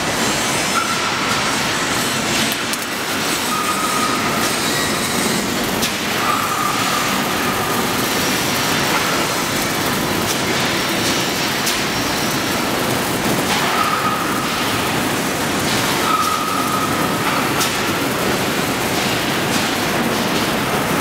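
Steady factory noise of a welding operation on a truck engine oil pan, a continuous crackling hiss. Short high squealing tones, each about a second long, recur every few seconds.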